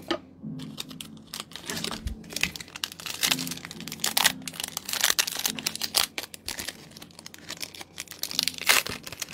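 Pokémon TCG booster pack's foil wrapper crinkling and tearing as it is opened, in an irregular run of rustles and short rips.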